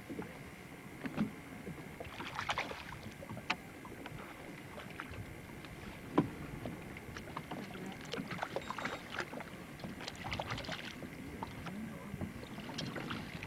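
Sounds of a hooked fish being brought alongside a small boat: scattered sharp clicks and knocks, with bursts of light splashing about two seconds in and again from about eight to eleven seconds.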